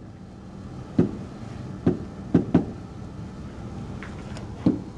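Pen tip on an interactive whiteboard's surface while writing: about five light knocks at irregular intervals, over a steady low hum.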